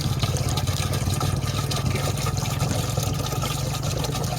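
Water running steadily over a steady low rumble.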